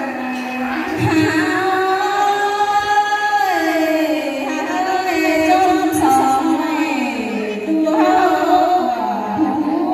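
A woman singing a Tai folk song (hát Thái) into a microphone over a loudspeaker, in long held notes that slide slowly from pitch to pitch.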